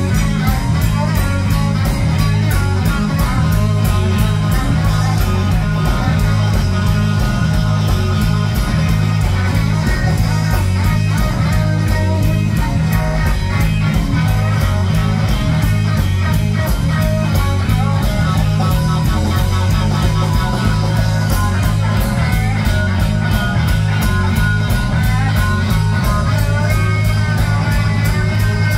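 Live band playing loudly: electric guitar over bass and drums with a steady beat, the guitar playing wavering, bent notes near the end.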